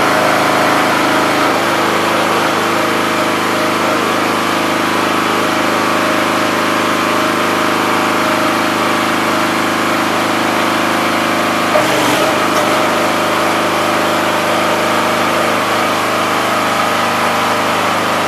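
Wood splitter's 5 hp engine running steadily while driving a newly installed two-stage hydraulic pump on its test run, as the ram is cycled out and back. About twelve seconds in there is one short knock and the engine note briefly changes.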